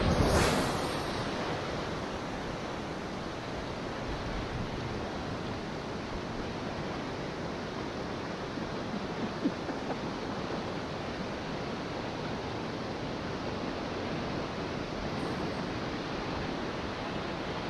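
Steady rush of river water flowing around a kayak on the move, mixed with wind on the microphone. A brief louder surge of water sound right at the start.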